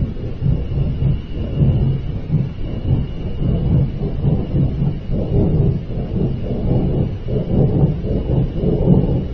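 A deep, continuous rumbling roar of unknown origin, rising and falling slightly, which the listener likens to a giant flame.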